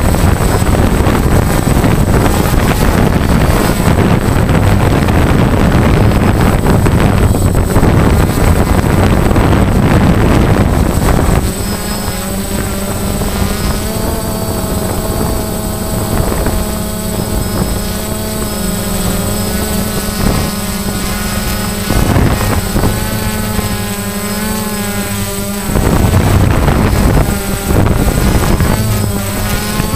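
DJI Phantom quadcopter's motors and propellers heard from the camera on board. For about the first eleven seconds there is a loud rushing of wind and propeller wash. It then drops to a steadier, quieter hum with a wavering whine, broken by gusts of rushing again near the end.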